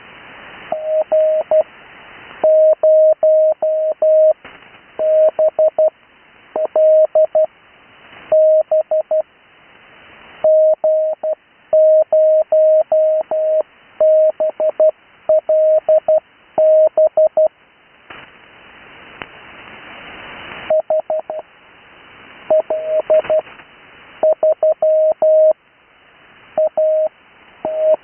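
Morse code sent as a steady tone of about 600 Hz, keyed in quick dots and dashes, in separate groups of callsigns. It comes through a radio receiver, and hiss rises in the pauses between groups, with one longer stretch of hiss about two-thirds of the way through.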